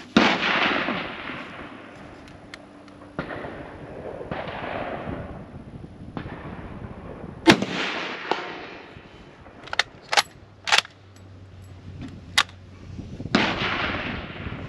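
Rifle shots from a Czech VZ-24 Mauser bolt-action rifle in 7.92x57mm (8mm Mauser), heard through a cell phone's microphone. Three loud shots come at the start, about halfway and near the end, each trailing off in a long echo. Fainter reports come around three and four seconds in, and a few sharp clicks fall between the second and third shots.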